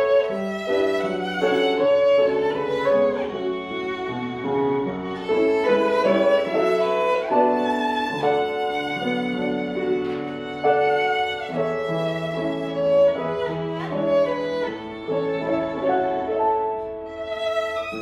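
Violin playing a melody over piano accompaniment, with some notes sliding into the next.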